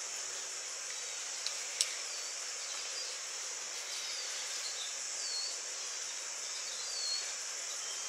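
Steady high-pitched insect chorus in the garden, with a few short dipping bird chirps and two light clicks about a second and a half in.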